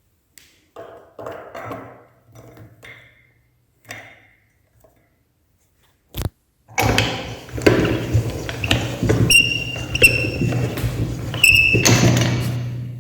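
Electric meat grinder, with light knocks and handling clatter first, then a click about six seconds in as it starts; its motor runs with a steady low hum, rattling, and a few short high squeaks as it grinds.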